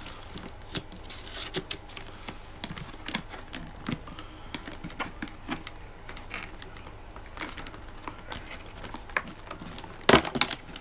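Knife cutting open a rigid plastic clamshell package: irregular small clicks and crackles of the plastic, with a louder crackle near the end.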